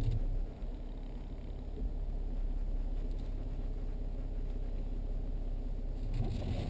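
Steady low rumble of a vehicle's engine and tyres heard from inside the cabin while driving, dipping slightly about half a second in.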